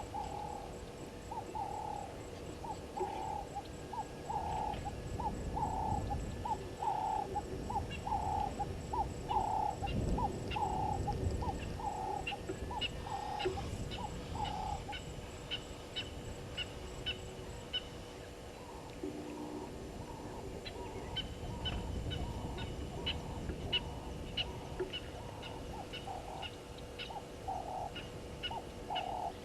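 A bird calling a long series of short, hoarse, evenly spaced notes, about two a second, that breaks off for a few seconds midway and then resumes. Faint sharp ticks repeat higher up, and low rumbles swell now and then.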